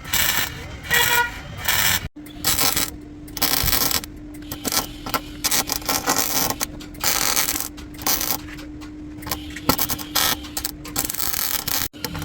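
Body-shop work on car sheet metal: repeated sharp metallic clinks, taps and scrapes, over a steady hum that starts about two seconds in and stops near the end.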